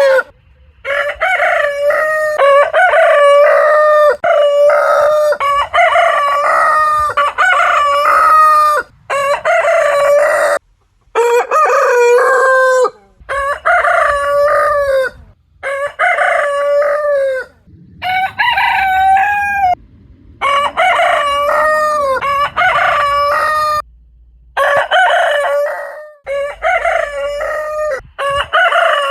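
Roosters crowing, one cock-a-doodle-doo after another, roughly one every two seconds. The crows are cut back to back with short silent gaps between them.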